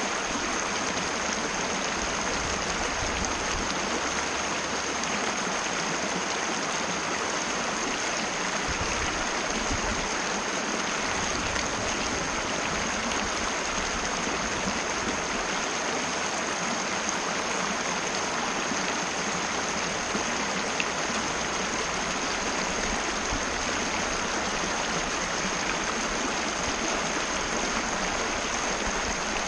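Mountain river rushing steadily over rocks, an even continuous flow without pauses. A thin steady high-pitched tone runs beneath the water throughout.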